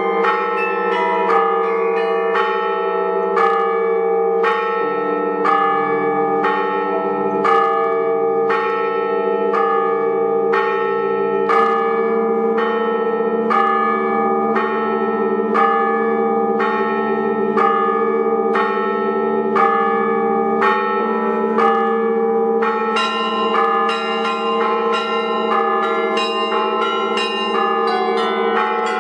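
Russian bell ringing (zvon) on a belfry of many bells. Small bells are struck in a quick steady rhythm over larger bells that keep ringing. A deeper bell joins about five seconds in, and the high bells grow busier near the end.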